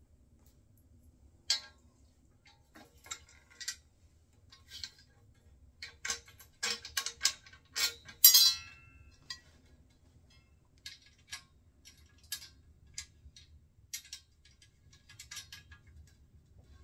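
Small metallic clicks and clinks of stainless nuts and bolts being handled and fitted by hand into a wheelbarrow's steel tube frame, coming irregularly, with one louder ringing clink about eight seconds in.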